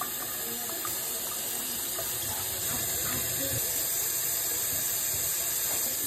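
Water running steadily, a continuous rushing hiss heaviest in the high range, with a few faint small knocks underneath.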